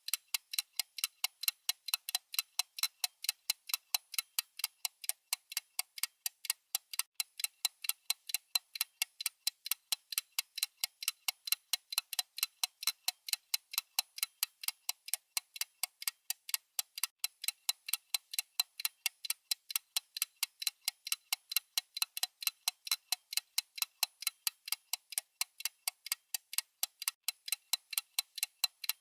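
Clock-style ticking sound effect of a countdown timer: a rapid, even train of sharp, bright ticks, several a second, keeping a steady pace throughout.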